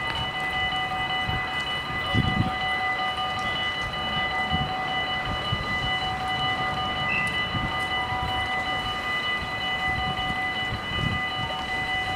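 Steady whine of several high tones held throughout, over irregular low rumbling and thumps, from railway equipment at a station level crossing.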